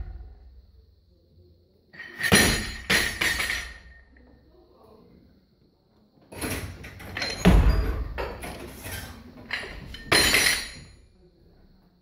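A barbell loaded with bumper plates is dropped onto the lifting platform from overhead and bounces several times with metallic clanging, about two seconds in. From about six seconds in there is a longer run of heavy plate and bar impacts and clanks.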